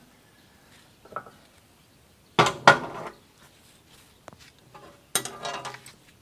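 Steel parts clanking and rattling against a steel frame as a sheet-steel splitting table and its support bracket are fitted: a light knock about a second in, then two louder clattering bursts.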